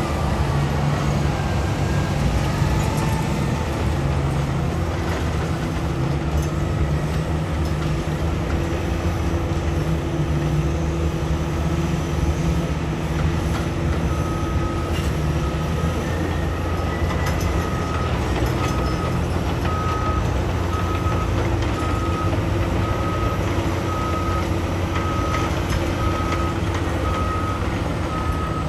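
Heavy mining machinery diesel engines running steadily, from the excavator and dump trucks at work. About halfway through, a reversing alarm starts beeping about once a second and keeps going.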